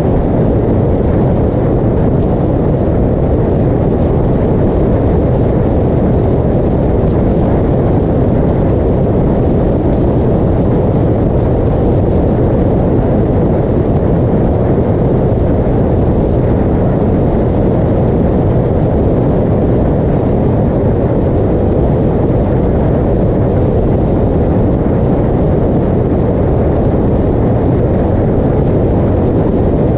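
Motorcycle cruising steadily at highway speed, its engine running under a constant rush of wind and road noise on the handlebar-mounted camera's microphone.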